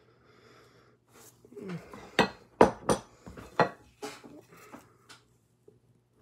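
A ceramic plate being grabbed and handled, giving a quick run of sharp clinks and knocks, loudest in the middle.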